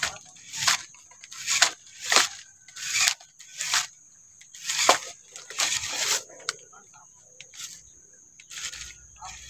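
Radio-controlled 4x4 crawler truck climbing a dirt bank: its tyres scrabble and crunch on dry soil and leaves in short bursts, about one every half second to second. A steady high whine runs underneath.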